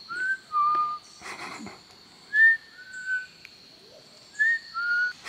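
A person whistling a two-note call three times, each a short higher note dropping to a slightly lower, held note.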